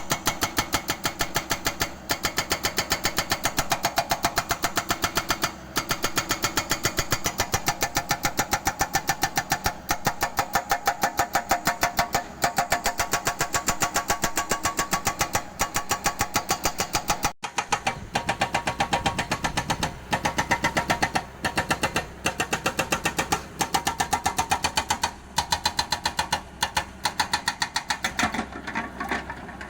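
Hydraulic breaker on a mini excavator hammering concrete, a fast, even run of blows broken by a few short pauses, with the excavator's engine running underneath.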